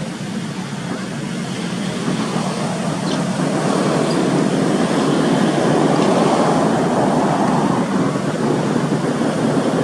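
Steady outdoor rushing noise that grows gradually louder, with no animal calls standing out.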